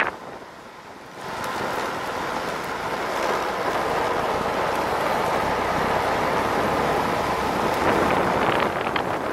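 Wind rushing over the microphone together with the roll of urethane longboard wheels on asphalt at downhill speed: a steady rushing noise that swells about a second in and then holds, with a few faint ticks near the end.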